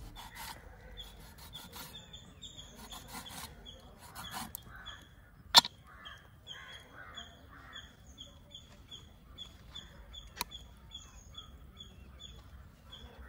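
Knife scoring a raw fish on a wooden chopping board: soft scraping and rubbing, with two sharp knocks of wood about five and ten seconds in. A bird chirps a short high note over and over, about twice a second, in the background.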